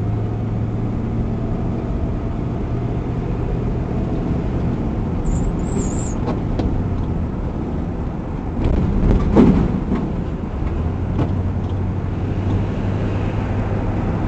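Steady road and engine noise inside a car's cabin as it drives along, with a low hum. About nine seconds in there is a louder bump with rattling clicks.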